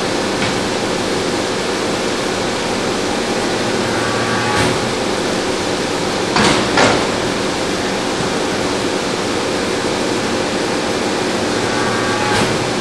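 Y83-300 hydraulic briquetting press running: a steady, loud drone with a low hum, broken by a few short sharp clanks, the loudest two close together about six and a half seconds in.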